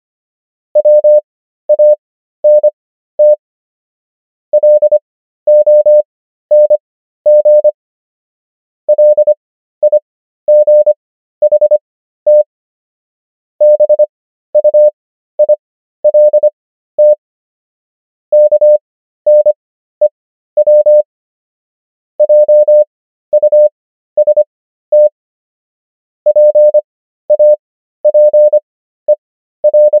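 Morse code practice: a single steady mid-pitched tone keyed on and off in dots and dashes. Characters are sent at 25 words per minute with long Farnsworth gaps between letters and words, for an overall speed of 13 words per minute. It spells out common English words, roughly one word every four seconds.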